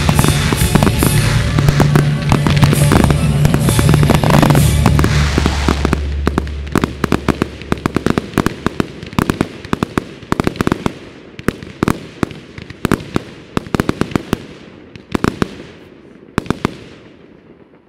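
Fireworks bursting in rapid, dense bangs and crackles over music for the first six seconds or so. Then the music stops and scattered bangs and crackles thin out, getting steadily quieter.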